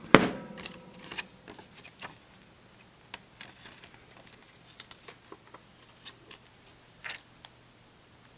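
Light handling of a smartphone and small plastic protector stickers: a sharp click at the start, then scattered faint clicks and taps, with a brief scrape near the end.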